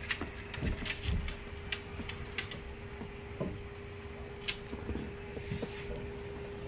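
Basset hound puppy chewing a carrot: scattered sharp clicks and crunches, over a faint steady hum.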